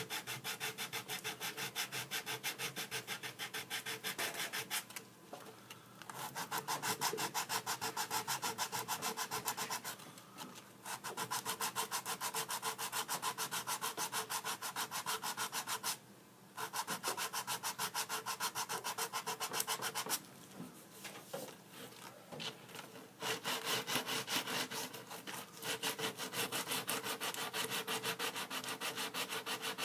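Coarse 100–150 grit sanding sponge scrubbed rapidly back and forth by hand over hardened epoxy-stick filler on a board corner: a dry, raspy scratching at about five strokes a second, in runs of several seconds with short pauses. The filler powders rather than gums, the sign that the epoxy has fully cured.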